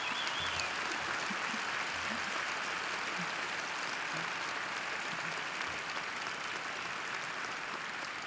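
A large arena crowd applauding steadily, with a whistle near the start.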